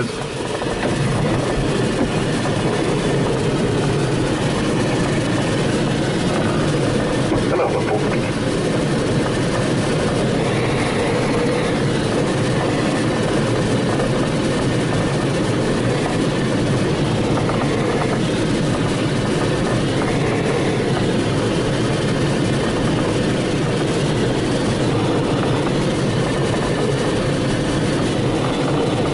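Steady rush of airflow around an Astir CS 77 glider's canopy and airframe, heard from inside the cockpit as it descends on its landing approach with the landing gear extended. There is no engine.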